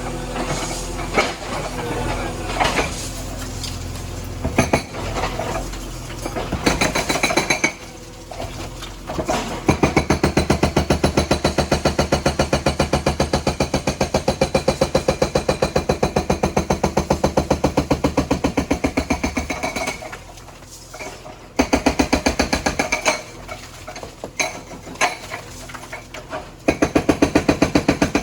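Hydraulic breaker on a JCB backhoe hammering with rapid, evenly spaced blows, many a second, over the machine's running diesel engine. The hammering begins about a third of the way in and runs for about ten seconds, then comes back in shorter bursts near the end.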